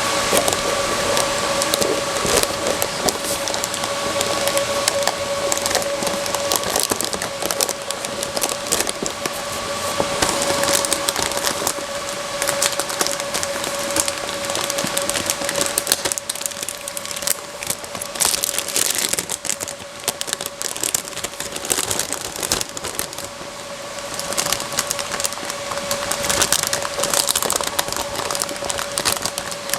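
Cardboard and plastic packaging of a new graphics card being handled, crinkled and torn open, with many small crackles and clicks, over a steady hum.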